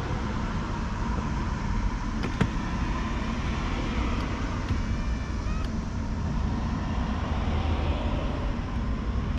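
Ford Expedition power seat motor running steadily as the front seat travels all the way back, a low hum over steady background noise, with a few light clicks.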